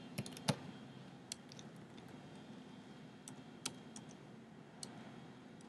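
Computer keyboard keys clicking faintly and irregularly: about eight or nine separate keystrokes of slow typing, the loudest about half a second in.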